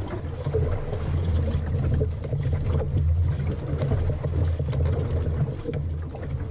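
Wind rumbling on the microphone of a small sailing dinghy under way, a steady low buffeting with the wash of the sea and a few light knocks.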